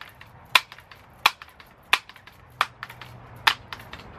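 Daisy 880 multi-pump air rifle being pumped: the forend pump lever is swung open and shut stroke after stroke, each stroke ending in a sharp click, about one every 0.7 seconds, five times. The pumping builds up air pressure for a full 10-pump shot.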